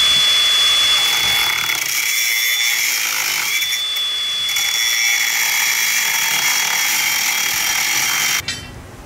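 Handheld power tool running continuously with a steady high whine, which sags briefly twice as if under load, then cuts off suddenly near the end.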